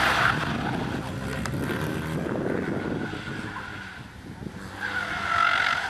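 Mini Cooper S being driven hard: the tyres squeal through a slide, trailing off at the start, the engine note rising and falling between corners, and a second tyre squeal near the end.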